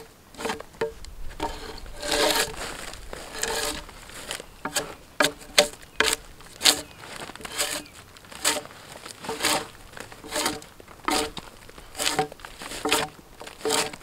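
Repeated hand-tool blows on timber, coming steadily about one to two a second, each a sharp knock with a short ring, with a couple of longer scraping sounds early on.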